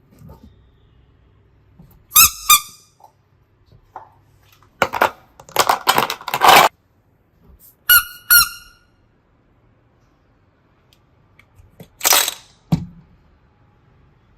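Slime being squeezed and handled, in short sounds with quiet between them: two quick squeaks about two seconds in, a run of wet crackling squelches in the middle, two more squeaks, and one last squelch near the end.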